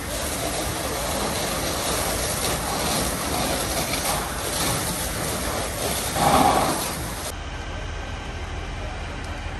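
A large farm-building fire burning: a steady rushing noise with crackling, with a brief louder burst a little after six seconds. About seven seconds in, the sound drops to a quieter, duller rushing noise.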